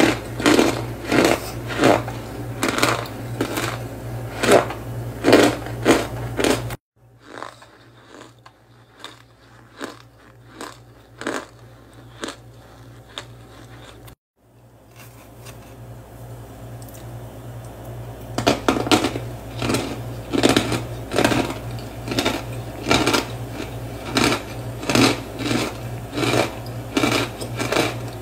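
Chunks of compressed cornstarch being crushed, giving a quick series of dry, powdery crunches about two a second. The crunching turns much softer about seven seconds in, then comes back at full strength for the last ten seconds or so.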